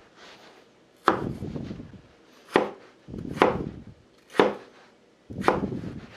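A cleaver chopping peeled raw potatoes on a wooden cutting board, cutting them into thick pieces for french fries. There are five sharp knocks on the board, spaced about a second apart.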